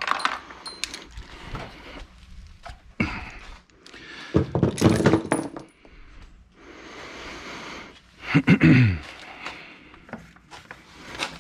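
Hand tools and small metal parts clinking and clattering as they are handled. There are knocks from a black plastic body panel being fitted by hand, and a short squeak falling in pitch about eight seconds in.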